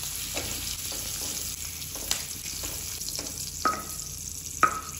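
Green capsicum pieces sizzling in butter in a kadhai while a metal spatula scrapes them up and out of the pan, with several sharp metal clinks, the loudest near the end.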